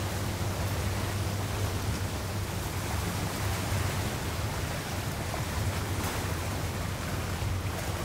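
Steady rush of wind and choppy sea water, with a low steady rumble underneath.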